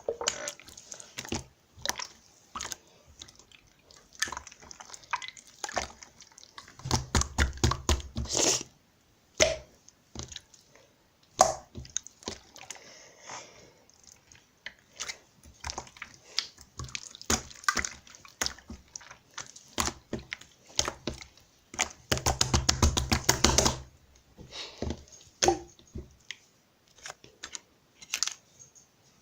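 Irregular sharp clicks and taps, with two bursts of rapid clicking, one about seven seconds in and one about twenty-two seconds in.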